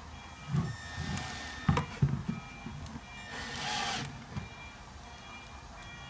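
Cordless drill briefly whirring as it drives a screw into a cedar board, among several dull knocks of wood and tool being handled, and a short rattle about three and a half seconds in.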